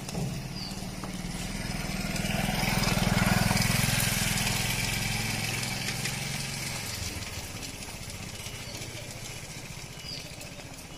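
A motor vehicle's engine passing close by, growing louder to a peak about three seconds in and fading away by about seven seconds.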